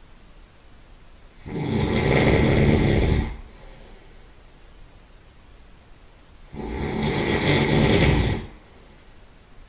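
Loud nasal snoring from a sleeper lying on their side: two long snores about five seconds apart, each lasting about two seconds, with much quieter stretches between.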